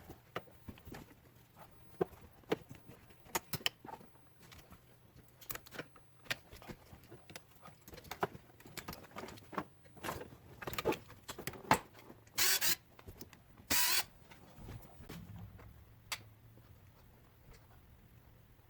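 Scattered light clicks and knocks of hand tools and plastic steering-column trim being handled while the column is taken apart. There are two short scraping noises, about twelve and a half and fourteen seconds in.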